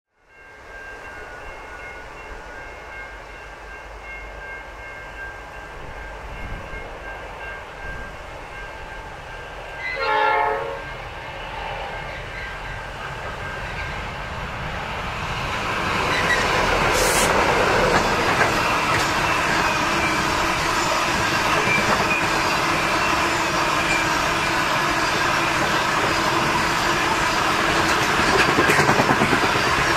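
Pacific National 81 class diesel locomotives approach hauling a grain train, with one short horn blast about a third of the way in. The engines grow louder as the locomotives pass at about halfway, then the loaded grain hopper wagons roll by. Level crossing bells ring steadily in the first half.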